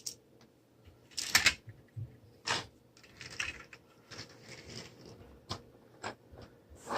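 Plastic Lego pieces being handled, with irregular clicks and rattles about once a second.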